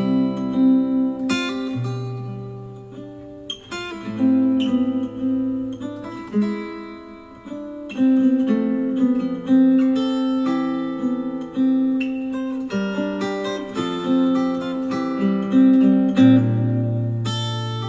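Acoustic guitar music, plucked notes and strummed chords, played back through a JBL Flip 6 Bluetooth speaker.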